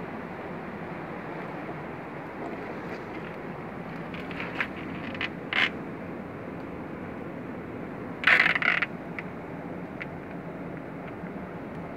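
Steady rushing noise from the shore, with a few short scrapes and clicks from hands handling things on barnacle-covered rock; the loudest is a brief clatter about eight seconds in.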